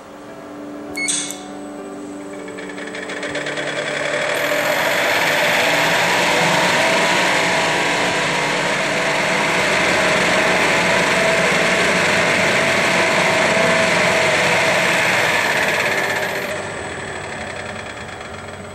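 Kurabo Mazerustar KK250 planetary mixer running after its start button is pressed. There is a short click about a second in, then a motor whir that builds over a few seconds as the container spins up to mixing speed, holds steady, and drops off near the end as the run winds down.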